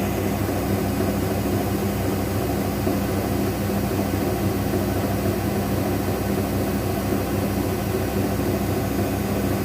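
Daewoo DWD-FT1013 washing machine in its 800 rpm spin with an unbalanced load: a steady motor hum over a dense rumble that holds level throughout.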